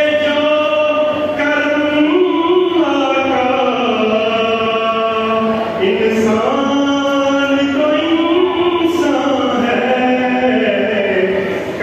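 A man's voice chanting devotional verses in long, held, melismatic phrases that slide up and down in pitch.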